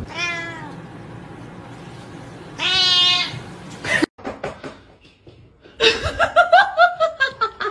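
A cat meows twice: a short, falling meow at the start, then a longer, louder meow about three seconds in. After a break, a rapid run of short pitched cries follows.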